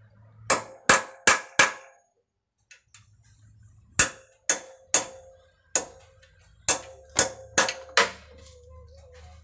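Hammer blows on a steel drift knocking the lower steering-head bearing race out of a Suzuki Thunder's frame. Sharp metallic knocks with a short ring: four quick strikes, a pause of about a second, then eight more, unevenly spaced.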